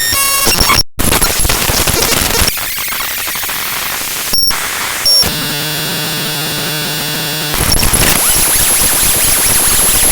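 Binary data from the GLEW library DLL played back as raw audio: harsh, loud static-like noise. It changes abruptly between sections, with a brief dropout about a second in, short beeping blips, a buzzy patterned stretch in the middle, and then steady hiss with a thin high whine near the end.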